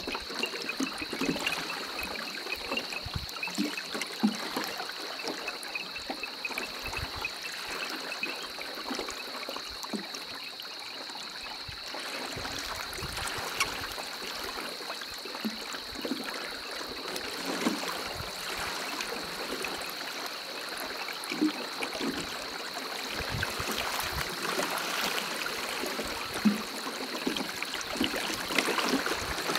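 Water trickling and lapping along the hull of a poled dugout canoe (mokoro) gliding through shallow water, with occasional soft knocks. A steady high-pitched chorus runs throughout.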